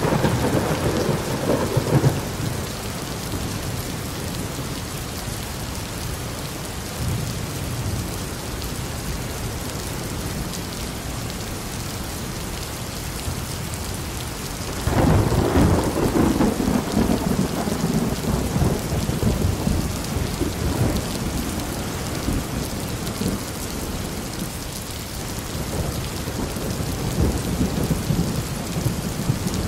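Thunderstorm: steady rain with rolling thunder. A rumble fades out in the first couple of seconds, a loud peal breaks suddenly about halfway and rolls on for several seconds, and a softer rumble swells near the end.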